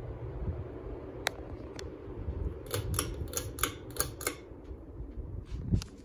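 Turn of the Century ceiling fan running, a steady low hum and whoosh of its spinning blades. Partway through comes a quick run of sharp clicks, and a low thump sounds just before the end.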